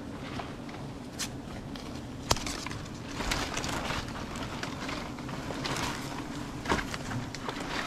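Steady low buzzing of honeybees around an opened wild nest, with rustling and three sharp clicks or knocks; the loudest comes a little after two seconds.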